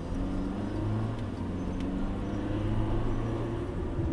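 Car driving with its engine pulling under acceleration and steady tyre and road noise, the engine note climbing slightly.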